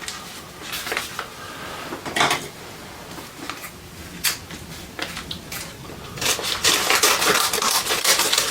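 Small metal bells and chimes on a replica bracelet clinking and jingling as it is handled, with scattered single clinks at first and a denser jangle from about six seconds in.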